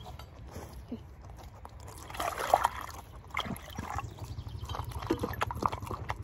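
Water poured from a bottle into a collapsible plastic dog bowl, splashing loudest about two and a half seconds in, followed by a series of short wet clicks as a dog laps water from the bowl.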